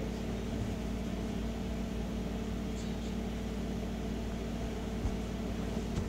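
A steady low hum holding a few fixed tones, at an even level throughout.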